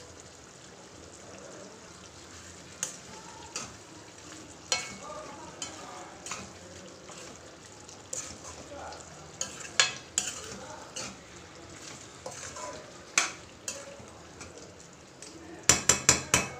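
A metal slotted spoon stirring thick curry in a metal kadai, clinking and scraping against the pan every second or so over the steady bubbling of the simmering gravy. Near the end comes a quick run of about six sharp clinks of the spoon on the pan.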